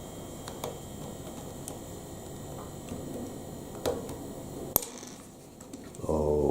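Plastic Lego Technic pieces being handled and pressed together: a few scattered small clicks, the sharpest about three quarters of the way through, over a steady background hiss.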